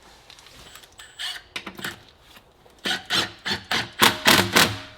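Ratchet wrench being worked back and forth to tighten a bolt, a run of short rasping ratchet strokes that grow louder from about three seconds in, about four a second, with a faint metallic ring.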